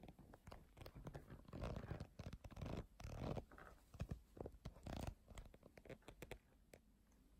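Faint handling noise from a handheld phone camera: irregular rustling and scraping with scattered light clicks, dying away near the end.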